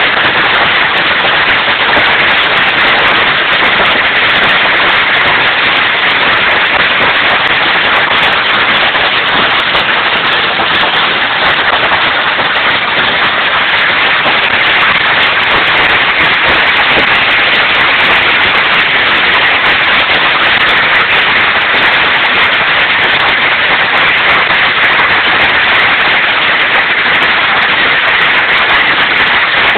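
Hailstorm: a dense, steady clatter of hailstones and rain pelting down, countless small hits merging into one loud, unbroken noise.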